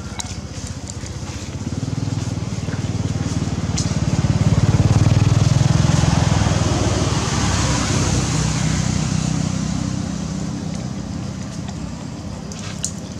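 A passing motor vehicle's engine hum that swells to its loudest about five seconds in and then fades away.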